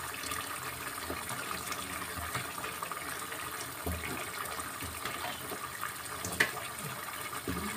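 Pot of pinakbet broth bubbling on a gas stove, with a few soft plops and splashes as chunks of squash are dropped in. The sharpest comes about six and a half seconds in.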